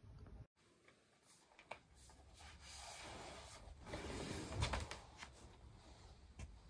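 Faint room tone with quiet rustles and a few light knocks and taps, from a person settling on a sofa and handling a laptop and a drink.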